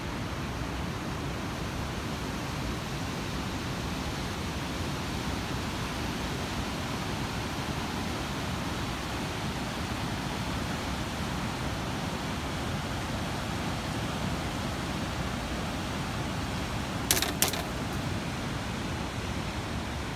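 Steady rushing of river water pouring through the sluice gates and over a man-made weir, the arranged waterfalls that once powered the town's mills. Two sharp clicks sound close together near the end.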